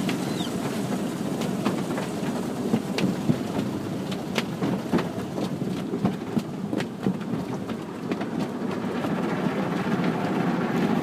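Automatic car wash heard from inside the car: water spraying and beating on the car's body and windows, a steady rush with many small knocks and spatters.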